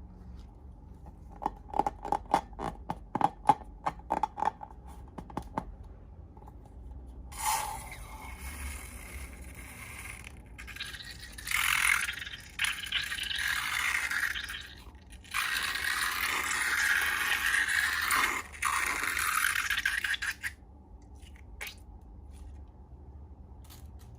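Slime-making with balloons: a quick run of sharp clicks, then several long stretches of scraping noise.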